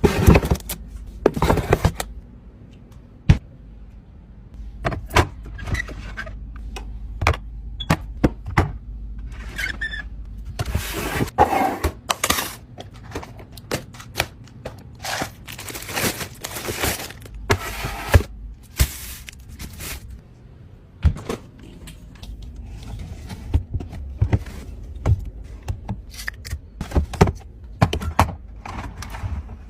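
Irregular knocks, clicks and clinks of containers and household items being handled and set down while a refrigerator is arranged, over a steady low hum.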